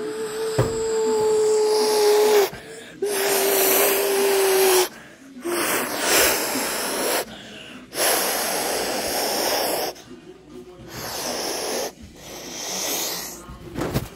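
A child imitating a jet airplane with the mouth: a held hummed tone, then about five breathy whooshing blasts, each a second or two long, with short gaps between them.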